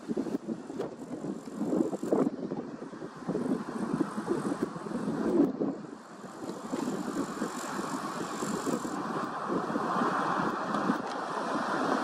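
Gusty wind buffeting the microphone: an uneven rumble that comes and goes in short gusts. It settles into a steadier rushing noise over the last few seconds.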